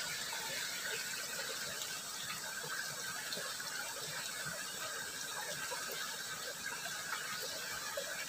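Small stream in a ditch trickling and babbling steadily over the shallows, a continuous gurgle with fine crackling detail.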